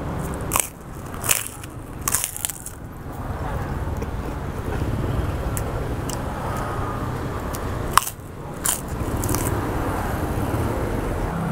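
Crisp fried crackers crunching as a person bites and chews them, in short sharp crunches: a cluster in the first couple of seconds and another around eight to nine seconds in. A steady low background hum runs underneath.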